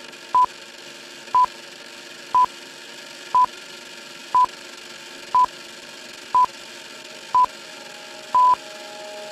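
Film countdown leader beeps: a short, high, pure beep once a second, nine in all, over a steady hiss, the last beep held a little longer.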